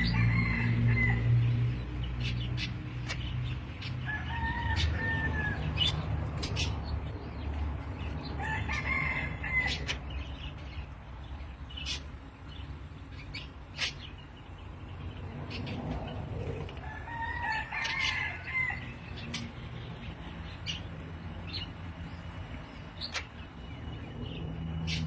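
Recorded calls of the bird known locally as 'ngambok', played as a bird lure: short arched calls that come every four to nine seconds, over a low hum and scattered clicks.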